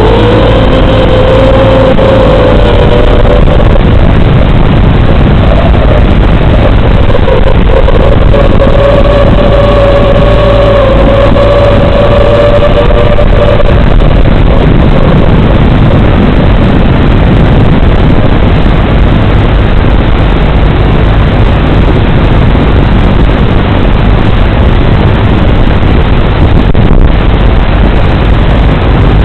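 Audio track recorded by an analog FPV video receiver: an FPV quadcopter's motor whine, wavering in pitch, under loud static hiss. About halfway through, as the analog signal breaks up, the whine is lost and only the static noise remains.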